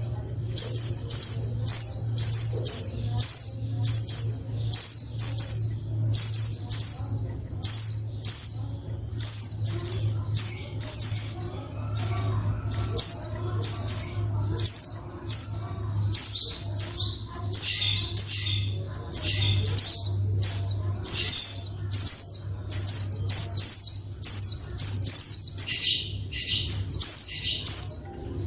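Female white-eye (pleci) giving loud, short, high chattering calls, each a quick falling note, repeated about one and a half times a second. This is a female call used to provoke male white-eyes into answering and singing. A steady low hum runs underneath.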